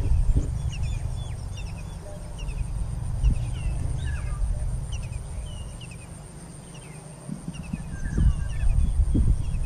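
Small birds chirping in short, quickly repeated calls over a low rumble of wind on the microphone, which eases off for a couple of seconds past the middle. A thin, steady high-pitched whine runs underneath.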